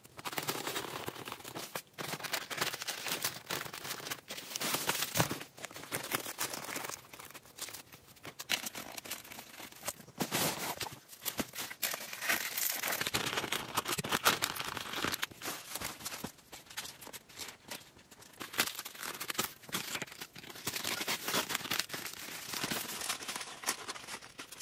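Irregular rustling and crackling, dense clicks coming in waves a few seconds long.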